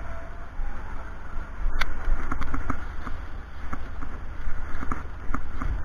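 Low rumble of wind buffeting the microphone, with one sharp click a little under two seconds in and a few lighter clicks and knocks, typical of metal bracket parts and tools being handled.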